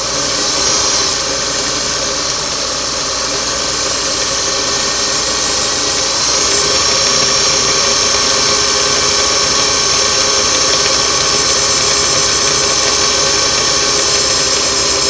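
Singer Model 413 Stylist sewing machine running at a steady speed to wind a bobbin, its bobbin-winder spindle driven by the rubber friction ring pressed against the hand wheel. The motor sound holds steady without a break.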